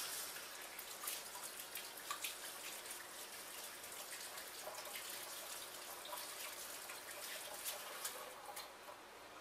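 Kitchen sink tap running while hands are washed under it, with a steady faint hiss of water and small splashes and drips.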